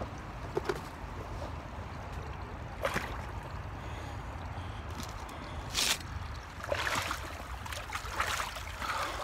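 Creek water running steadily, broken by a few sharp knocks and rustles as a jacket-bundle of geodes is handled, then sloshing from chest waders wading through the water near the end.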